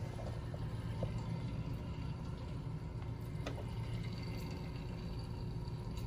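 Steady low hum of a hydronic boiler system running, with a faint rush like water moving through the piping, consistent with the circulator pump on while the boiler waits on its ignition trial. A few faint ticks.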